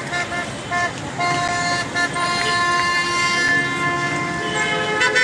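Several vehicle horns honking over street traffic, with overlapping short and long blasts at different pitches. One blast is held for about two seconds in the middle.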